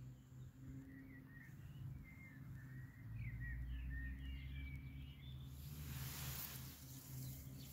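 Faint garden ambience: small songbirds chirping and twittering over a steady low rumble, with a brief rushing noise about six seconds in.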